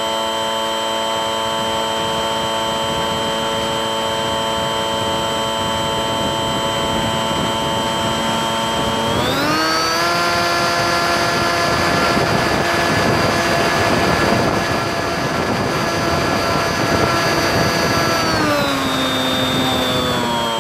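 Bixler 3 RC plane's electric pusher motor and propeller whining steadily in flight. The whine rises in pitch as the throttle opens about nine seconds in, holds, then drops back near the end, with wind rushing over the plane-mounted microphone.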